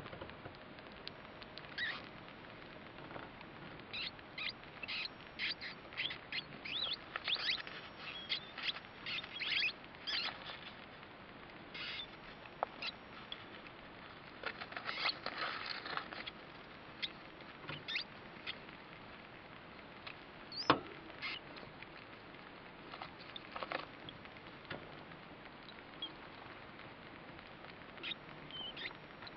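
Newborn rat pups suckling: many short, faint squeaks and clicks in irregular flurries, busiest in the first half, with one louder sharp click about two thirds of the way through.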